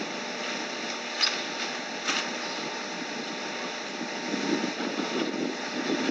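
Lakeside waterfront ambience: a steady hiss of wind and water, with two short sharp sounds about a second and two seconds in, and a rougher low rumble from about four seconds in.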